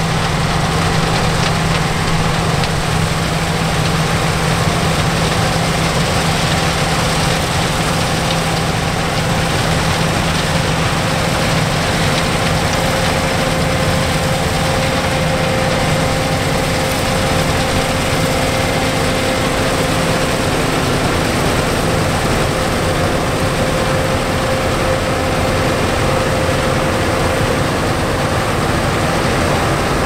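Claas Lexion combine harvester working through the crop: engine and machinery running at a steady, unchanging pitch.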